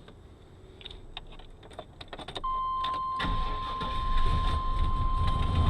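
Keys rattling and clicking in the ignition, then a steady electronic warning chime comes on. About three seconds in, the vehicle's engine, on a freshly installed battery, cranks, catches at once and settles into running.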